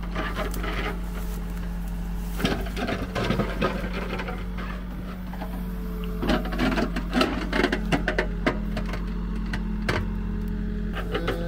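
Mini excavator's engine running steadily while its backhoe bucket digs a test pit in soil. The bucket's scraping and clunking come in repeated knocks from about two seconds in.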